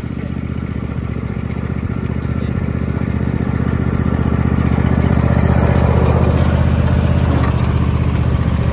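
John Deere riding lawn mower's engine running steadily as the mower drives up, getting louder as it comes close.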